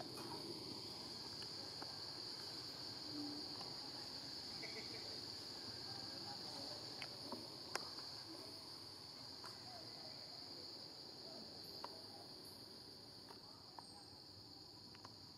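Steady high-pitched drone of a forest insect chorus, with a few faint scattered clicks.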